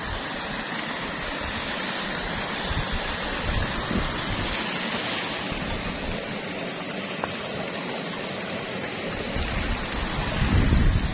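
Hot-spring stream rushing over rocks, a steady wash of running water. A louder low rumble breaks in briefly near the end.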